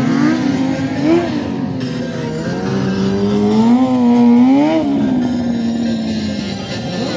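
Sport motorcycle engines revving up and down as riders hold wheelies, the pitch rising and falling about a second in and again around four to five seconds in.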